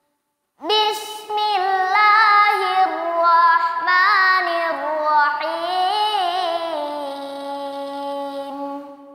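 A young boy's voice chanting Quran recitation in the melodic tilawah style. After a brief silence comes one long phrase whose pitch winds up and down in ornamented runs, ending on a long held note.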